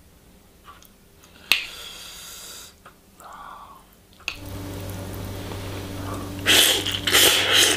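Chopsticks stirring thick black bean sauce into noodles in a bowl: wet, sticky squishing with a sharp click of the chopsticks about a second and a half in. A steady low hum comes in about four seconds in, and louder wet mixing noises follow near the end.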